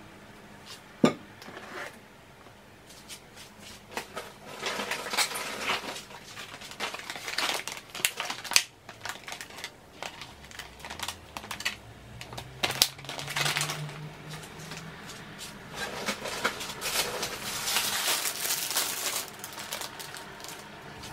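Plastic food packaging crinkling and rustling as groceries are handled and set down on a counter, with sharp clicks and knocks of plastic trays; the loudest is a single sharp click about a second in.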